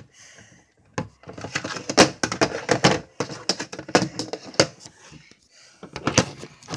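Handling noise: after a brief pause, a run of knocks and clatters as bats and toy guns are shifted about inside a storage box.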